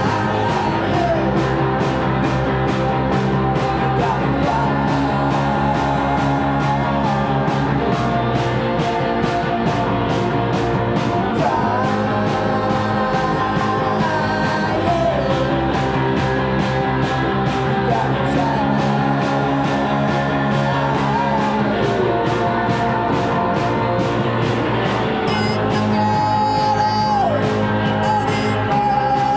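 Rock band playing live: electric guitar and bass over a steady drum beat, with a sung vocal line.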